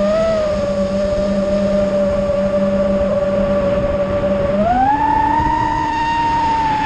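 Brushless motors and propellers of an iFlight Nazgul Evoque F5 5-inch FPV quadcopter, heard from its onboard camera, whining at a steady pitch. About two-thirds of the way through the pitch rises sharply as the throttle goes up for a climb, holds, and begins to fall at the very end.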